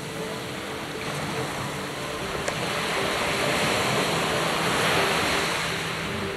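Sea waves washing, swelling louder from about halfway through, with wind on the microphone and a faint steady hum underneath.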